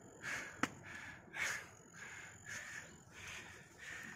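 A hiker moving along a stone trail close to the microphone: soft, rhythmic huffs about every half second, with one sharp click about half a second in.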